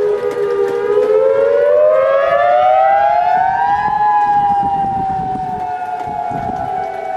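Outdoor tornado warning siren wailing: its pitch climbs steadily for about three seconds, then slowly falls.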